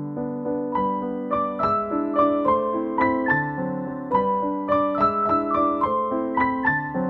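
Background keyboard music: a gentle piano-like tune of evenly paced notes over lower chords, with a higher melody line coming in about a second in.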